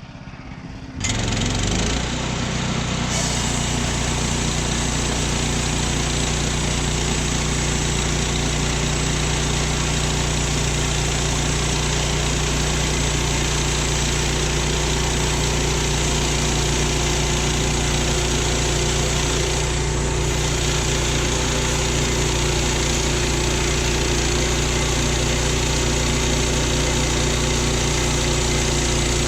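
Woodland Mills HM122 band sawmill's gas engine throttling up about a second in, then running steadily at high revs as the band blade cuts through a Douglas fir log.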